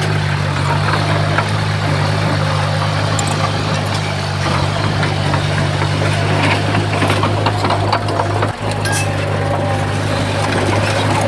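Heavy earthmoving machine's diesel engine running steadily under load, with scattered light clanks and knocks.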